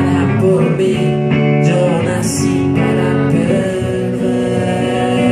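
Live guitar played through a small amplifier, sustained chords and notes in an instrumental passage between sung lines of a rock song.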